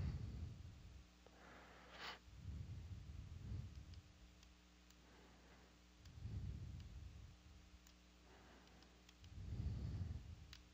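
Faint computer mouse clicks over a low steady hum, with a few soft breaths close to the microphone.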